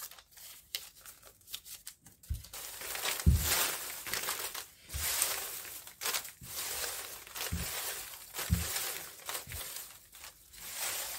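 Small paper slips being folded and handled: repeated paper rustling and crinkling, with a few soft thumps.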